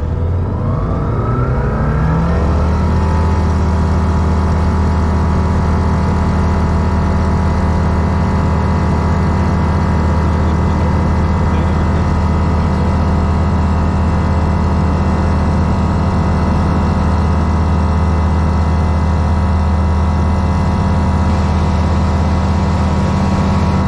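Grob G109B motor glider's FADEC-controlled 100 hp Rotax 912 engine and constant-speed MT propeller, heard from inside the cockpit at takeoff: the engine note rises over the first two or three seconds as power comes up, then holds steady at full power through the takeoff roll.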